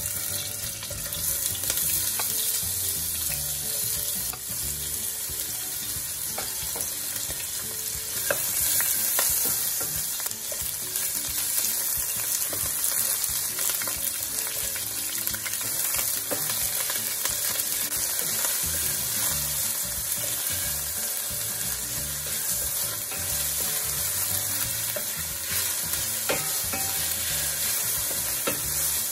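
Sliced onion sizzling as it sautés in hot oil in a stainless steel pan, a steady hiss, stirred with a wooden spatula that now and then clicks against the pan.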